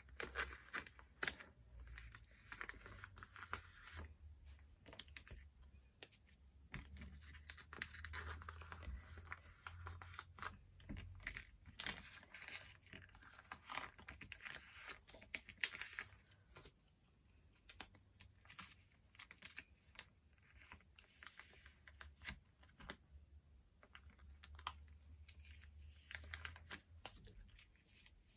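Hands handling and laying out photocards: faint rustling and crinkling, with many small clicks and taps of cards.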